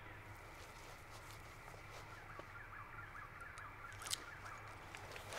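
Faint woodland ambience with a steady low hum and small bird chirps, which come as a quick run about two to three and a half seconds in. A brief rustle about four seconds in, as the pistol is lifted from the hand lying in the grass.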